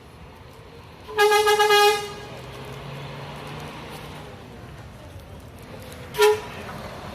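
A bus horn honks loudly twice: a held blast of under a second about a second in, then a short toot near the end. A low engine hum runs between them.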